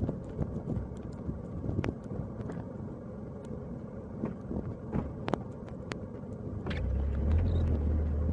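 Car driving on snow-covered streets: a steady low road and engine rumble with scattered sharp knocks, and a deeper rumble swelling about seven seconds in.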